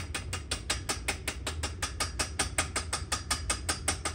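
Rapid, evenly spaced mechanical clicking, about six clicks a second at a steady strength, as grease caps are fitted on a Walker mower-deck carrier.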